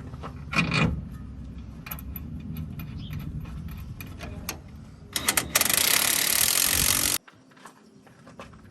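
Compressed-air tool running in one loud hiss for about two seconds, cutting off suddenly, while nuts on the truck's front suspension are being tightened. Before it come scattered metallic clicks of hand tools over a low steady rumble.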